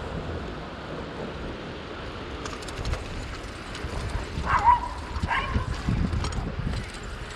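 Wind rushing on the microphone over the rattle of a bicycle crossing brick pavement. Halfway through, a dog yips twice, two short high calls less than a second apart.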